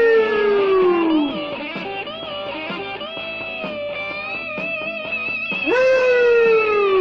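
Rock music instrumental break led by electric guitar: a long note slides down in pitch at the start and again about six seconds later, with busier guitar lines between.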